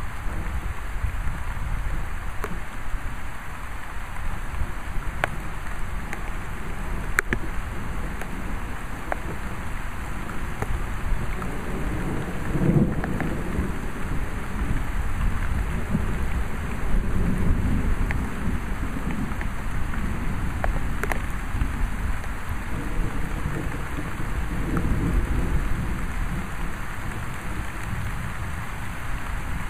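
Steady rain, with low rolling thunder that swells about twelve seconds in, rumbles on for several seconds, and comes back more faintly near the end. A few sharp ticks stand out over the rain.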